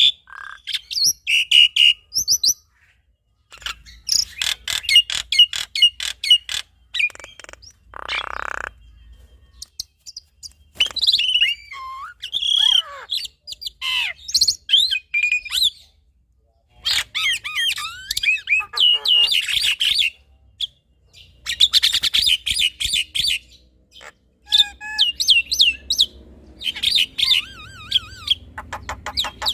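Black-winged myna and Javan myna calling together in a varied, loud stream of whistles, chirps and gliding notes, broken by fast clicking rattles and one harsh rasping call about a third of the way in, with short pauses between phrases.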